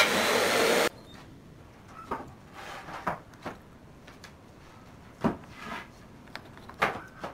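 A steady power-tool noise cuts off abruptly about a second in. Then come light, scattered clicks and taps of small wooden pieces being set down and pressed into place on a wooden panel, about six in all.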